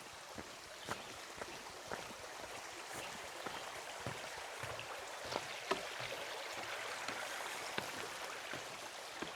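Steady rushing of flowing water, a stream, with the faint crunch of footsteps on a trail about once a second.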